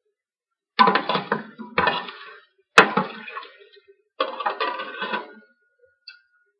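A metal ladle stirring and scraping in a stainless steel pot of curry broth, in several short bouts, with one sharp clank against the pot near the middle.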